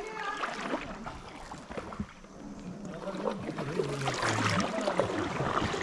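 Water sloshing and splashing around sea kayaks being paddled, with a few knocks and other people's voices in the background.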